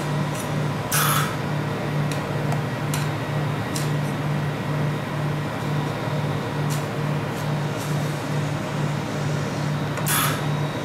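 Metal spatula scraping along a chilled steel ice-cream pan as a sheet of ice cream is rolled up, with sharp scrapes about a second in and again near the end and lighter ones between. Under it runs a low, evenly pulsing hum from the cold pan's refrigeration machine.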